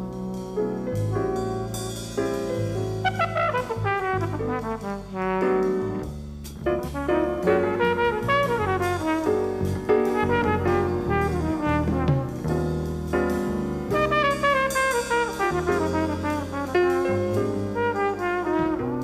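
Jazz quartet playing: a flugelhorn carries the melody over piano, upright bass and drums, with several quick falling runs.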